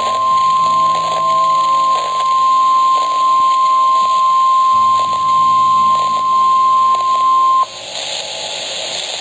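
Emergency alert broadcast attention tone: a single loud, steady high-pitched tone signalling that a tsunami warning is about to be read. It cuts off sharply about seven and a half seconds in.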